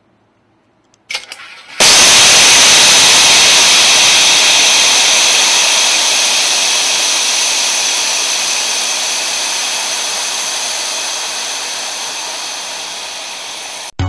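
High-pressure air blasting out of a breathing apparatus cylinder whose valve has been broken off. There is a short sharp sound about a second in, then a sudden loud hiss that slowly weakens as the cylinder empties.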